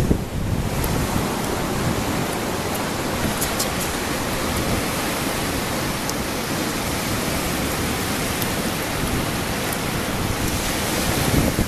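Steady rushing noise of ocean surf and wind, with wind buffeting the microphone.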